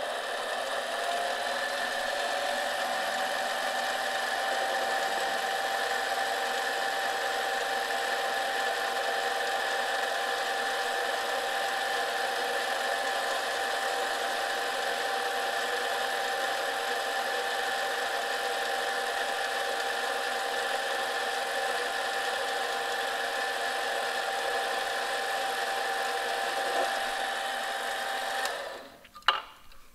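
Benchtop mini lathe running with a steady motor-and-gear whine while it turns down the shoulder of a bushing. The whine rises in pitch as the lathe spins up at the start, then cuts off near the end as it is switched off, followed by a click.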